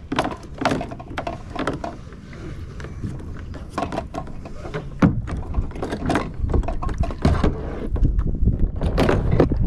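Irregular knocks and clatter of gear being handled on a kayak, with wind buffeting the microphone and building near the end.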